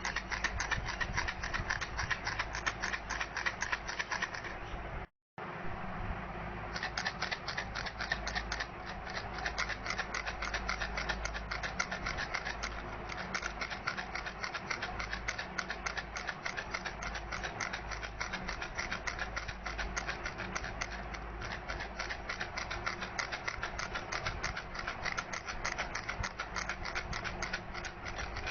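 Baby rattle shaken continuously: a dense stream of fast clicks and rattling, cutting out completely for a moment about five seconds in.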